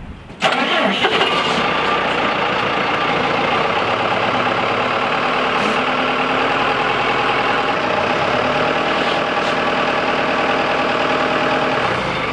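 SkyTrak 8042 telehandler's diesel engine running steadily. It comes in abruptly about half a second in.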